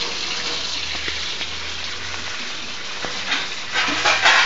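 Water gushing from a tap into a bucket: a steady rush and splatter, with louder splashes about three and four seconds in as a child's hand slaps into the stream.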